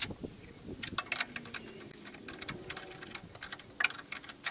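Irregular small clicks and crackles of hands working on a car horn's wiring and plug connector under the hood, several a second with no steady rhythm.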